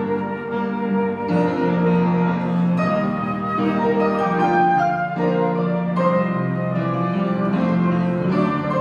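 Flute playing a slow, held melody over upright piano accompaniment, a gentle ballad.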